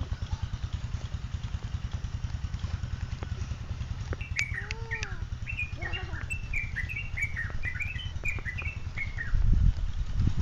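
Small birds chirping in quick runs of short falling notes, over a steady low pulsing rumble like a small engine running. A heavier low thump comes near the end.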